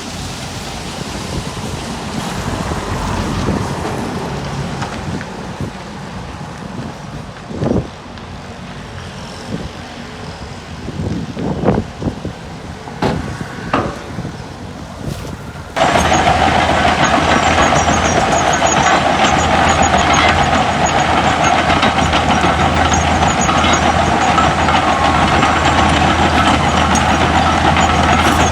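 Heavy diesel earthmoving machinery at work, dump trucks and a bulldozer, with a few short squeaks and hisses. About halfway through the sound switches suddenly to a louder, steady engine running close by.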